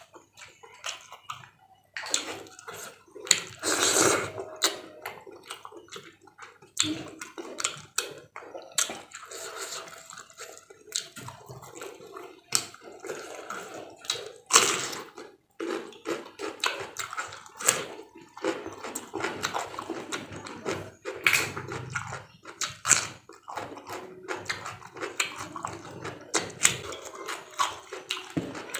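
A person eating close to the microphone, chewing and crunching raw vegetables and fried tempeh, with wet mouth and chewing sounds between irregular sharp crunches. A few crunches stand out louder, one about four seconds in and one around fourteen seconds in.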